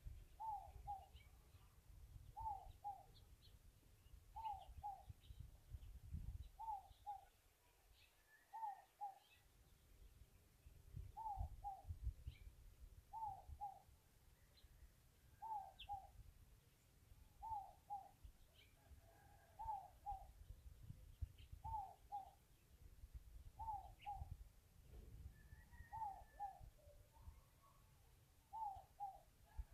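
A bird calling over and over, a faint two-note call with each note sliding down, repeated about every two seconds, with a few faint higher chirps and a low, uneven rumble underneath.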